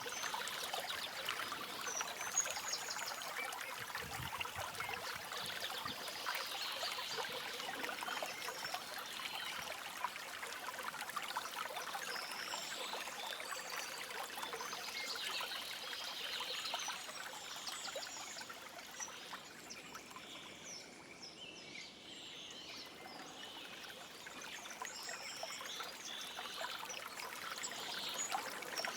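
A stream trickling and flowing steadily, with small birds chirping now and then above it. The water grows quieter for a few seconds past the middle.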